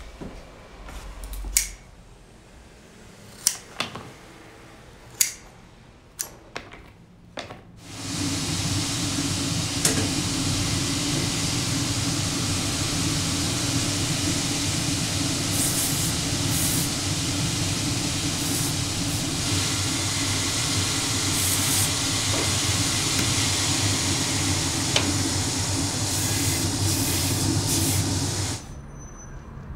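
A cobbler's finishing machine runs with a steady motor hum and rushing hiss, starting abruptly about eight seconds in and cutting off shortly before the end, with several brief sharper swells as work is held against its sanding wheel. Before it starts, a few sharp clicks and taps.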